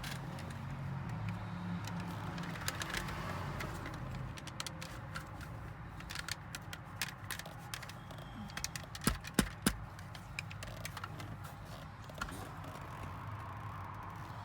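Plastic clicks, scrapes and rattles of a truck dashboard light switch being worked out of its panel by squeezing its retaining clips, with a couple of sharp clicks about nine seconds in. A steady low hum sits underneath.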